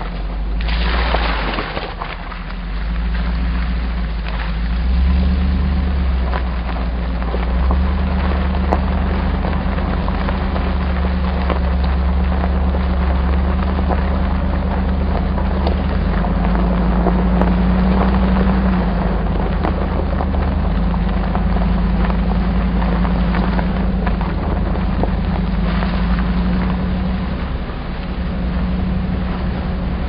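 Hummer H2's V8 engine running steadily, heard from inside the cab while driving on a dirt and gravel road, with tyre noise and frequent small knocks and rattles from the bumps. A brief louder rush of noise comes about a second in.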